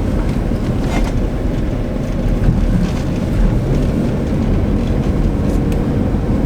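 Car engine pulling hard with steady road and tyre rumble while the car drifts at speed on snow, heard from inside the car. A few brief clicks or knocks, about a second in and near the end.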